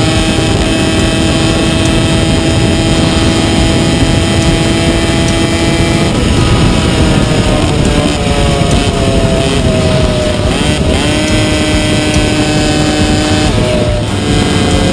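Vintage McCulloch 100cc two-stroke kart engine running at high revs, heard onboard. It holds a steady pitch for about six seconds, falls away for a few seconds in the middle, climbs back, then drops again near the end, over a heavy low rumble of wind noise.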